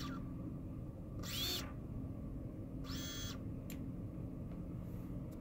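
A single small brushless drone motor spinning steadily with a low whir, the only one of four running: the Eachine Minicube 10A 4-in-1 ESC is defective and drives just one motor. Two brief hissing noises come about a second and three seconds in.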